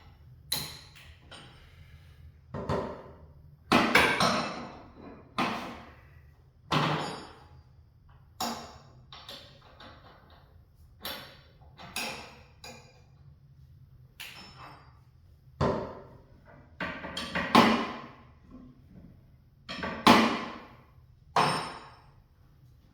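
Sharp metallic clanks and knocks, about a dozen, irregularly spaced a second or two apart, each ringing briefly: steel tools working on a garage door's spring as its tension is added.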